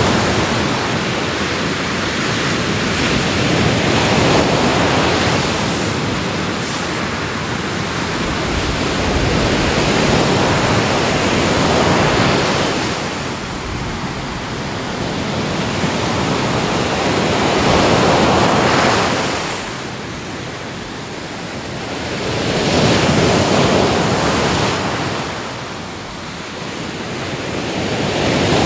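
Sea waves breaking and washing on the shore, the surf swelling and falling back every five or six seconds.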